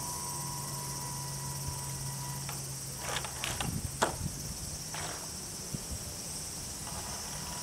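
Outdoor waterside background: a steady high hiss with a low steady hum that stops about three and a half seconds in. A few quick sweeping sounds and one sharp click come between three and five seconds in.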